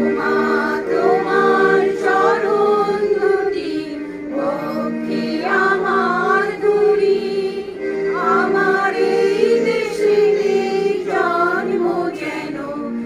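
A small group of mostly women's voices singing a song together, accompanied by held chords on a Yamaha electronic keyboard.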